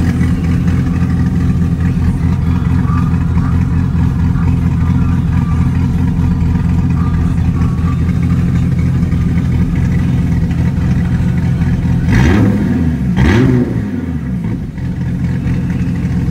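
Dodge Viper TA's 8.4-litre V10, built with an Arrow Stage 2 heads and cam package and running through Belanger headers and Corsa mufflers, idling steadily. Near the end it is revved twice in quick succession, about a second apart.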